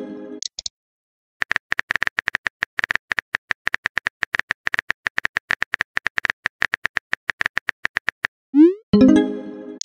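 Simulated keyboard typing sounds of a text-chat app: a long run of quick, even tapping clicks, several a second, for about seven seconds. Near the end it stops, followed by a short rising pop and a brief pitched chime as a message is sent.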